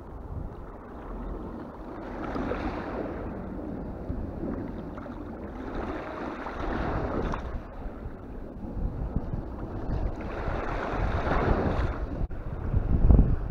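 Small waves washing in on a pebbly shore, rising and falling in surges every few seconds, with wind buffeting the microphone near the end.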